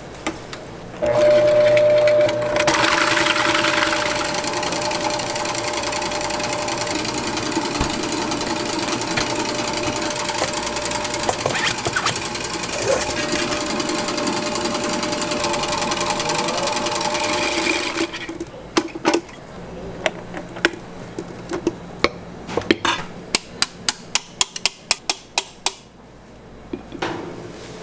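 Commercial stand mixer running with a wire whisk, whipping cream in a steel bowl: a steady whirr with a constant whine that starts about a second in and stops after some seventeen seconds. Then a series of sharp knocks and taps, coming faster near the end.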